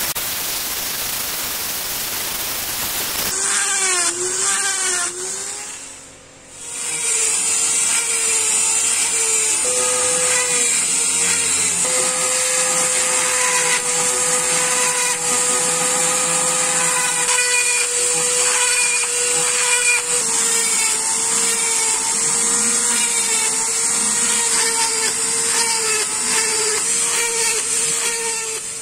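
Flex-shaft rotary engraver with a tungsten bit running and cutting a dotted texture into an acacia-wood axe handle. Its motor gives a steady whine whose pitch shifts now and then, and it dips away briefly about six seconds in. A rough hiss fills the first three seconds.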